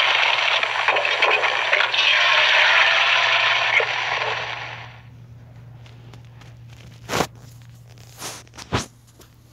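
Eggs sizzling and crackling in a frying pan, fading out about five seconds in. After that a low steady hum is left, with a few sharp clicks near the end.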